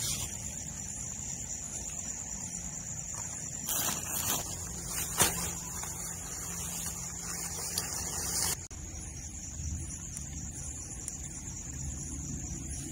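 Steady high-pitched chirring of night insects, likely crickets, over a low rumble of handling noise. A few rustles and clicks about four and five seconds in come from camping gear being handled and laid out.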